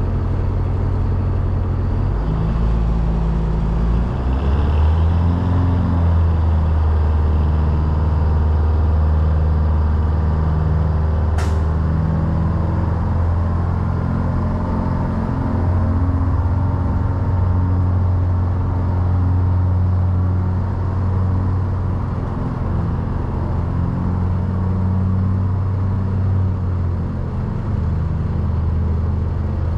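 A vehicle engine running steadily with a low hum, its pitch stepping up a couple of times early on and shifting slightly later. A single brief sharp sound cuts in about eleven and a half seconds in.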